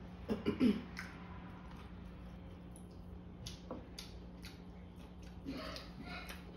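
Crispy, sauce-soaked fried chicken being pulled apart by hand, with scattered sharp crackles of breading and wet squishing. A brief throaty vocal sound near the start is the loudest part.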